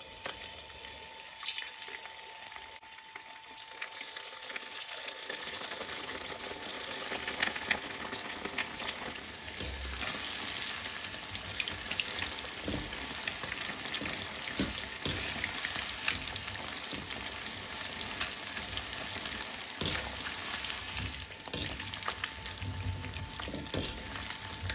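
Tapioca-starch-coated tilapia pieces deep-frying in a wok of hot oil: a steady sizzle and crackle that grows over the first several seconds as the fish goes in, then holds, with occasional sharp clicks.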